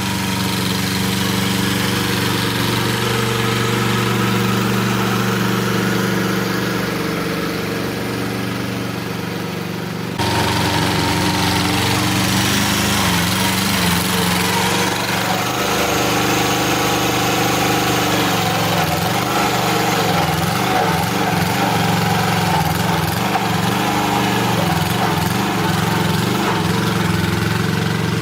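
An engine running steadily, with an abrupt change in its sound about ten seconds in.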